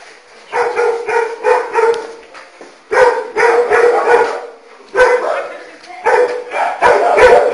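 A dog barking repeatedly in quick runs of short barks.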